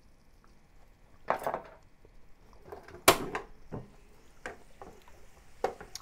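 A few separate sharp clacks and knocks of ceramic and wood, the loudest about three seconds in. A ceramic spoon is set down on the wooden counter after salt is sprinkled in, then a wooden spatula knocks against a nonstick frying pan as the stir-frying starts again.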